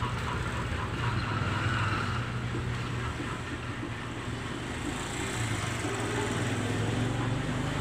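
A steady low mechanical hum over an even haze of background noise.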